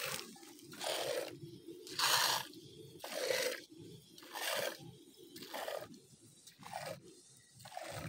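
A goat being milked by hand: streams of milk hiss into a metal pot of milk, one squirt about every second.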